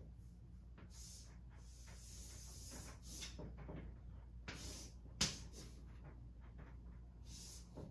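Chalk scratching across a blackboard in a series of short strokes as a character is drawn, with one sharp tap of the chalk on the board about five seconds in.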